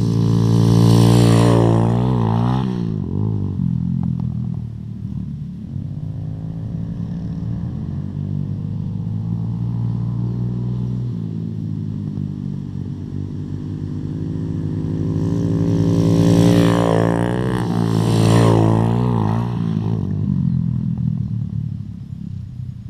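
Mini bike engines revving, loudest about a second in and again from about sixteen to nineteen seconds in, the pitch rising and falling as the throttle opens and closes. Between the two loud stretches the engines run at a steadier, quieter drone.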